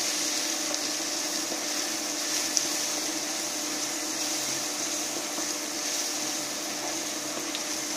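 Sliced onions and ground spices frying in a nonstick pan, a steady sizzle as a spatula stirs them, with a steady hum underneath.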